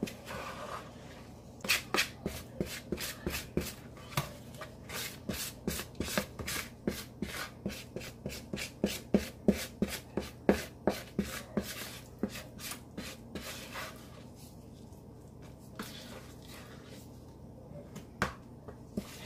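Wooden spoon stirring thick muffin batter in a bowl, scraping and knocking against the bowl's sides at about two to three strokes a second. The strokes thin out to a few scattered scrapes in the last few seconds.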